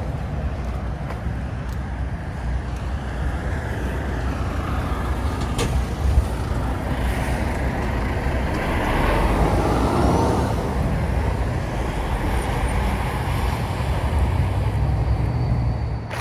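Road traffic going round a roundabout close by: cars and lorries passing, with a steady low rumble of engines and tyres. An articulated lorry passes nearby midway, its engine rumble swelling and fading.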